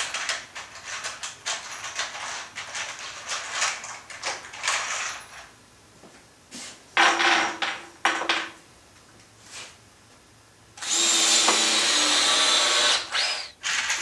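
Cordless drill driving 2-inch Torx screws into wood: a short run about seven seconds in and a louder, steady run of about two seconds near the end, after several seconds of clicks and knocks from handling the tool and screws.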